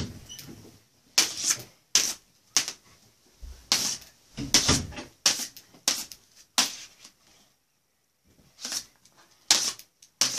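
Plastic toy lightsabers clacking against each other in a sword fight: about a dozen sharp, irregular clacks, with a pause of about two seconds past the middle.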